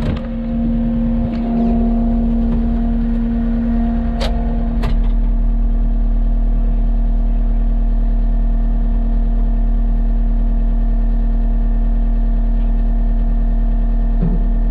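Vehicle engine running steadily at a constant speed, with two sharp clicks about four and five seconds in.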